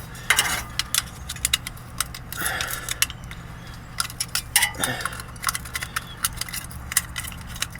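Metal tongs clinking and clattering against metal parts in an irregular series of sharp clicks.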